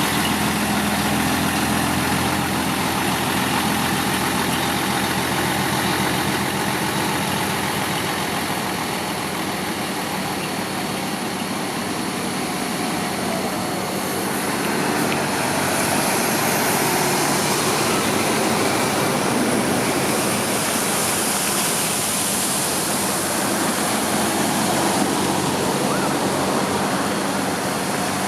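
Heavy road-construction vehicles' diesel engines running steadily, a constant low engine hum under a wash of mechanical noise.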